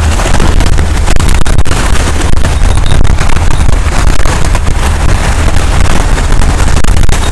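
Strong wind buffeting the microphone, a loud, steady low rumble, over waves breaking on the rocks.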